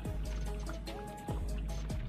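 Background music with a steady beat: deep drum hits about every 1.3 seconds under short plinking notes.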